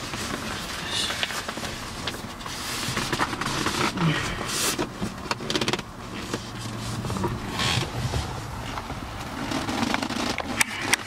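Fabric seat cover being pulled and stretched over a truck seat back by hand: irregular rustling and scraping of cloth against the seat.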